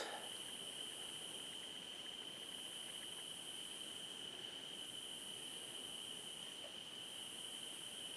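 Faint chorus of night insects: a steady, unbroken high cricket trill, with a higher hiss over it that swells and fades every two seconds or so.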